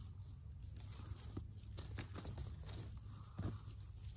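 Dry leaf litter crackling and rustling as a tent stake is pressed into soft forest ground and its guyline handled, with a slightly louder crunch about three and a half seconds in.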